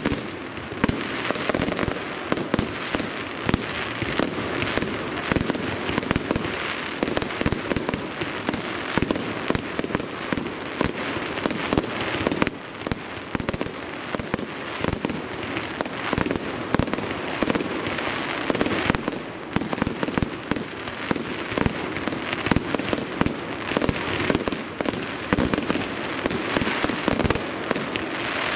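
Fireworks display: aerial shells bursting in a continuous barrage, many sharp bangs in quick succession with no pause.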